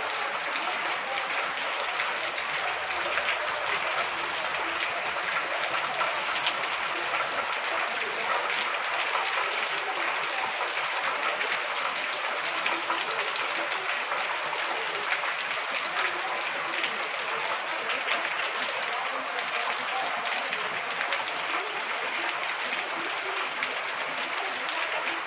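Heavy rain falling steadily onto a wet street and standing water, a dense, even hiss of drops with no let-up.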